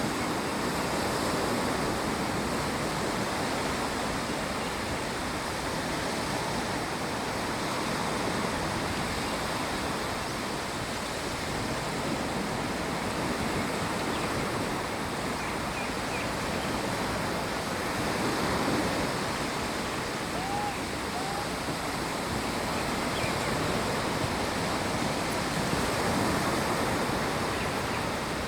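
Steady rush of water, an even noise with no break. Two short faint rising chirps come a little past the middle.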